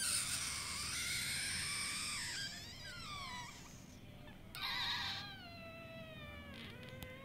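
Two high-pitched wailing cries that slide down in pitch. The first starts suddenly and lasts about three seconds. The second comes about a second later and falls lower.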